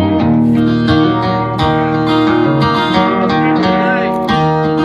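Instrumental opening of a country song, led by strummed guitar over a steady bass line.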